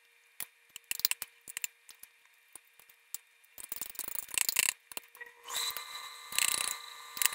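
Metal spoon clinking and scraping against a glass bowl while the last rice is scooped up: scattered sharp clicks at first, then denser, busier scraping from about halfway.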